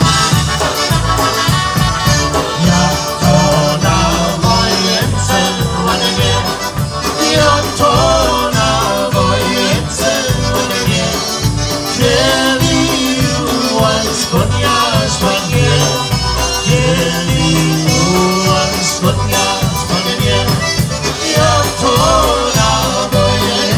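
Polka band playing live: accordion, concertina, electric bass and drum kit over a steady oom-pah beat, with trumpets at first and then band members singing.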